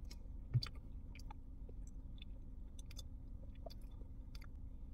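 A person chewing a mouthful of soft macaroni and cheese, with faint wet mouth clicks and smacks scattered through. One short low thump about half a second in, over a faint steady low hum.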